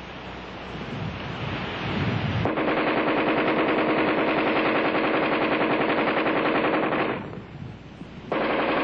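AR-10 rifle firing on full automatic. After a rising rush of noise, a long burst of rapid shots begins about two and a half seconds in, breaks off briefly near the end, then a second burst starts.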